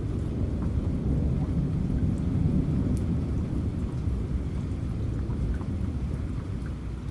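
Steady rain with a long, low rumble of thunder that swells about two seconds in and slowly fades, with faint scattered drop ticks.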